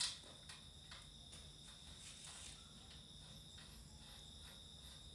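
Faint cricket chirping: a thin, steady high tone with soft ticks about three times a second.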